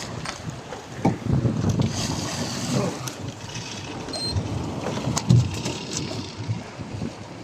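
Wind buffeting the microphone in gusts over the wash of rough sea along a fishing boat's side.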